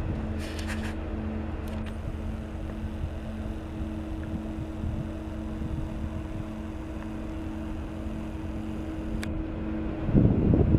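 Steady industrial hum from an aluminum smelter plant: a low rumble with two held mid-low tones over a constant haze, which the recordist takes for a giant industrial engine. Near the end a louder, low gust of wind hits the microphone.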